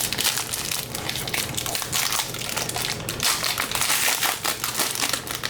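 Plastic card-pack wrapping crinkling and crackling as it is handled and opened by hand.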